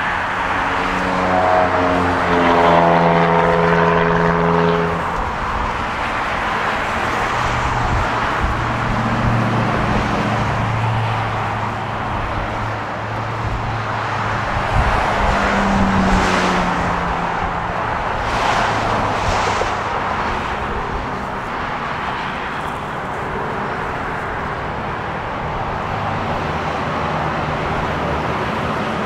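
Motor vehicle engines running close by over steady traffic noise; one engine note rises in pitch about a second in, and a lower engine hum follows a few seconds later.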